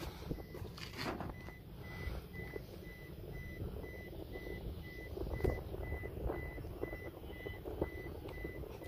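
Faint electronic beeping: one high tone repeating evenly about twice a second. Underneath is a low rumble of wind and a few soft handling clicks.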